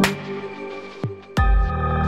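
Background music: sustained chords, with a sharp hit at the start and another about a second and a half in, led into by a deep falling bass sweep.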